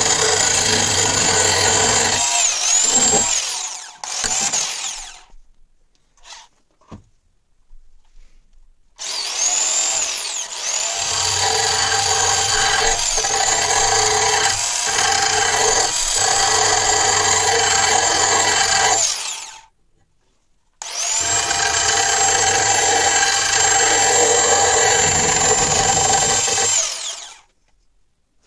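Electric drill spinning an abrasive grinding bit against the rusty steel of an axe head: a steady motor whine over grinding. It runs in three long stretches, stopping about four seconds in, starting again around nine seconds, pausing briefly around twenty seconds, and stopping for good near the end.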